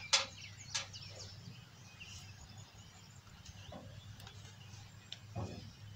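Quiet outdoor ambience: a steady low hum with a few short bird chirps, two of them within the first second.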